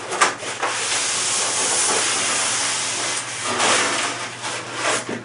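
Rifle box packaging being handled: a steady hissing rustle for a couple of seconds, then several shorter rustles and light knocks.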